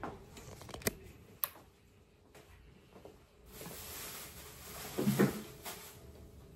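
Household handling noises: two sharp clicks early on, then a couple of seconds of rustling with a short knock about five seconds in, as things are picked up and moved on a table.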